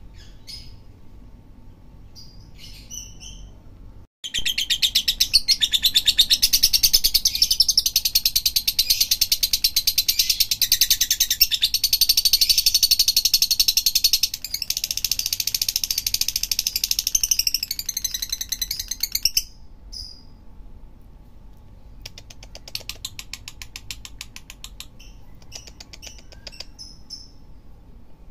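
Lovebird singing: a few short high chirps, then a loud, very fast chattering trill held for about fifteen seconds. After a short pause comes a softer rapid trill with scattered chirps.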